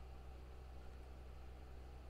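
Quiet room tone: a low steady hum with faint hiss, and nothing else.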